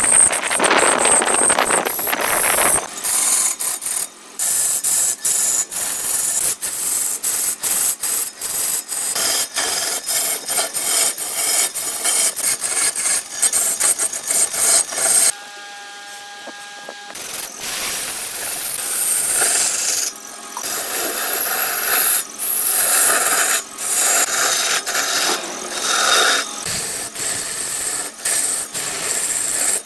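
Hand-held turning tool cutting into a large log spinning on a wood lathe: continuous scraping with rapid chatter as wood is stripped away. About halfway through, the cutting stops for a couple of seconds and only a steady whine of the running lathe is left, then the cutting starts again.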